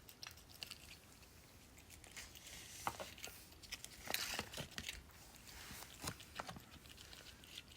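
A cat licking and chewing at a Churu lickable treat tube: faint, irregular clicks and smacks, a few louder ones in the middle.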